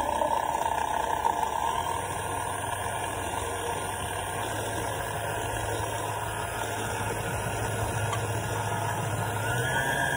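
Electric kitchen mixer motor running steadily with a low hum, rising in pitch near the end as it speeds up.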